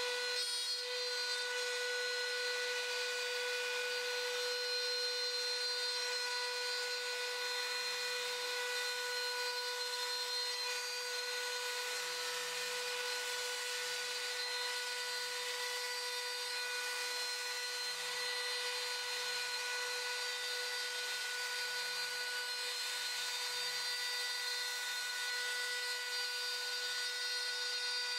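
Makita trim router spindle on a CNC router running at a steady high speed while its bit carves a 3D relief into MDF board: one unbroken high-pitched whine with a hiss of cutting over it.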